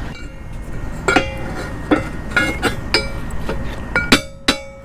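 Short cut pieces of steel pipe clinking against metal, about six sharp strikes that each leave a bright ringing tone; the last two, near the end, are the loudest.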